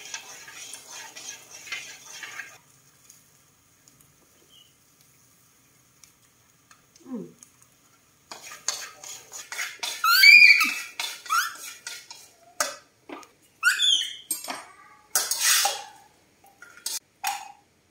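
Corn kernels being stirred and scraped around a metal wok with chopsticks and a metal spoon, clattering and clinking. A quiet pause of a few seconds falls near the start, and short squeaky sounds come in among the busier clatter of the second half.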